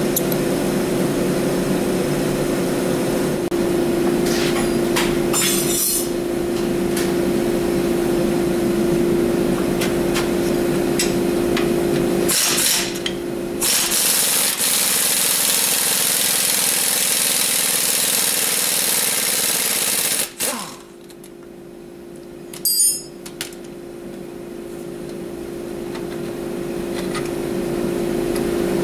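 A pneumatic impact wrench runs on the tie rod end nut: a short burst, then a rattling run of about six seconds over a steady machine drone. About two-thirds of the way in the drone drops away suddenly and slowly builds back, with a brief flurry of clicks just after the drop.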